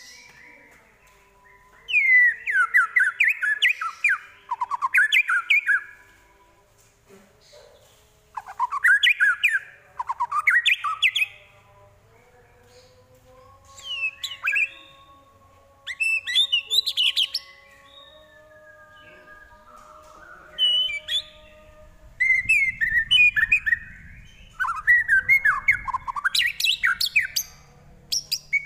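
White-rumped shama (murai batu) singing: about seven bursts of rapid, pitch-sweeping whistled phrases with short pauses between them. Its song is packed with mimicry of other birds' calls.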